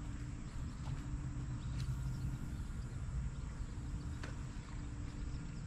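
Outdoor ambience: a steady low rumble with insects buzzing faintly, and a thin high hiss that comes in about two seconds in.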